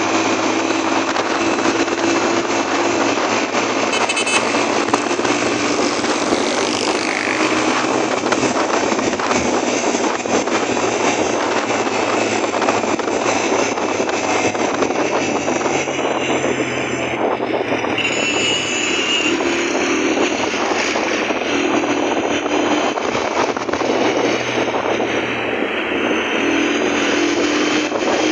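Steady, loud road noise of a motorcycle riding through city traffic: the bike's engine and rushing air blend into one continuous rush, with other vehicles around.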